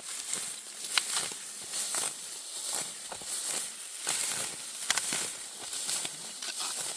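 Dry barley stalks rustling and crackling in irregular short strokes as they are pulled up by hand.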